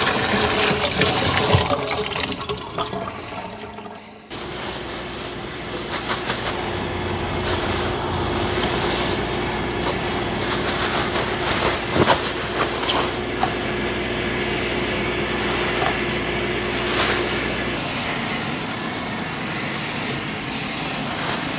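Tap water running into a steel sink as radishes are rinsed; about four seconds in it gives way to plastic produce bags crinkling and rustling as salad greens are packed, over a steady low hum that stops near the end.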